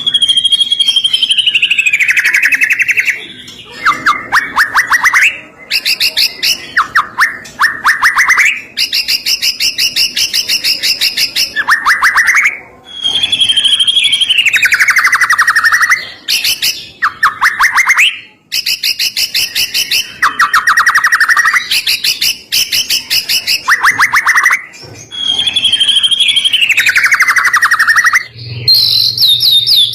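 White-rumped shama (murai batu) song: a loud whistled note sliding downward, then fast rattling trills and quick runs of repeated notes. The same sequence of phrases comes round again about every twelve seconds.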